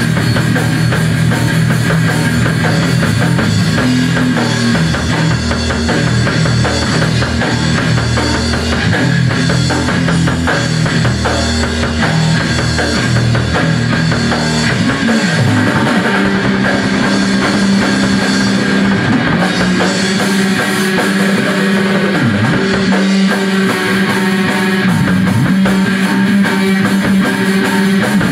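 Loud live rock jam on a drum kit and guitar, the guitar holding low notes with a few quick swoops down and back up in pitch in the second half.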